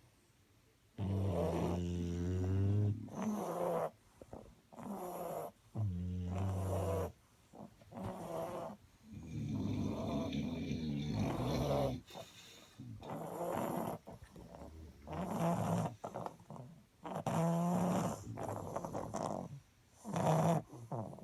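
English bulldogs snoring: a run of irregular snores, each lasting about one to two seconds, with short pauses between them.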